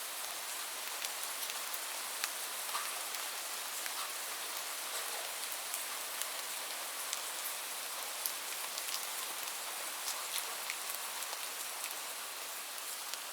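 Heavy rain falling steadily, a dense hiss with sharp individual drop impacts ticking through it.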